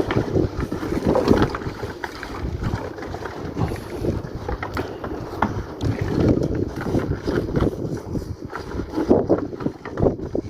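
Wind buffeting the microphone: an uneven, gusting rumble.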